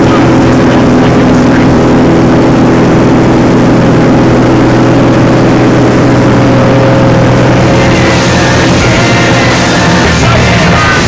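Small plane's engine droning steadily inside the cabin during the climb, with rock music coming in over it about eight seconds in.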